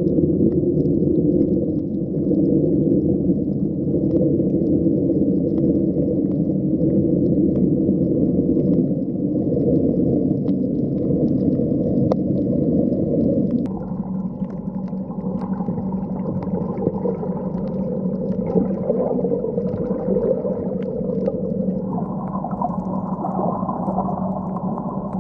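Muffled underwater sound picked up through a 360 camera's waterproof housing: a steady low rumble with a few faint clicks. About fourteen seconds in it drops in level and changes, leaving a steady low hum.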